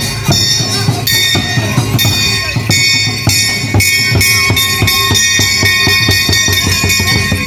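Traditional Khmer ngũ âm (pinpeat) ensemble music for the yak dance: ringing metallic strikes like bells or gongs over a fast, steady beat of struck notes.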